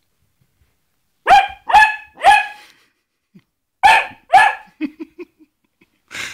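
Basset hound barking: three sharp barks in quick succession about a second in, then two more after a short pause, followed by a few quieter short low sounds and another bark near the end.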